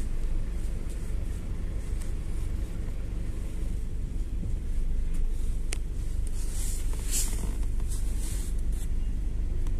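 GAZelle City minibus running on the road, heard from inside: a steady low engine and road rumble, with one sharp click about halfway through and a few brief hissing swells in the second half.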